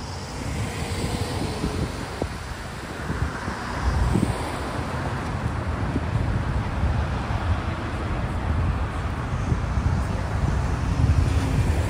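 Road traffic passing through a street intersection, with wind buffeting the microphone; it grows a little louder about four seconds in.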